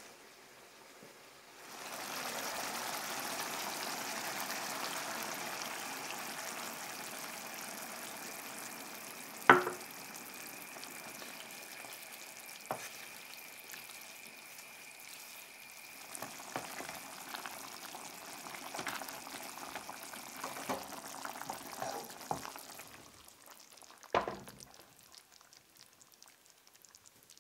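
Chicken in tomato and cream sauce sizzling and simmering in a nonstick frying pan while a wooden spatula stirs and scrapes it. A sharp knock about ten seconds in is the loudest sound, smaller scrapes and taps follow, and one more knock comes near the end, after which the sizzling has stopped.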